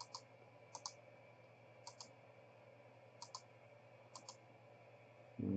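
Faint computer mouse clicks: about five quick pairs of clicks, irregularly spaced, over a low steady hum.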